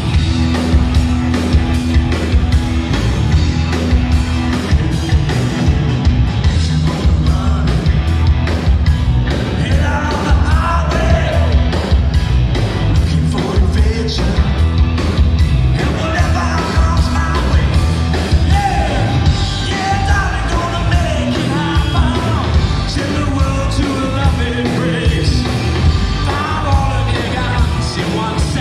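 Live rock band playing loud: drum kit, electric guitar and bass guitar, with a male lead vocal coming in about ten seconds in.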